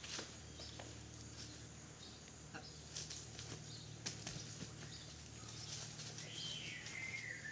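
Faint footsteps of a person and a dog running and jumping over grass strewn with dry fallen leaves: scattered light rustles and crunches.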